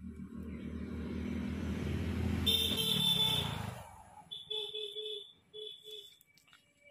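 A motor vehicle passes close by, its rumbling noise swelling for about three seconds and fading out, with a horn-like tone at its loudest, followed by a few short beeps.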